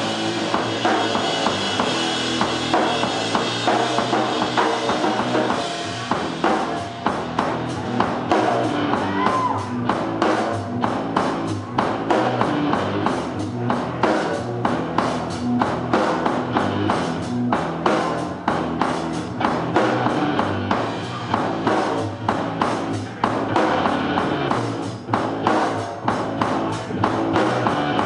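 Live rock music from a drum kit and an electric guitar played through an amplifier. The drums turn to a fast, steady run of hits about six seconds in.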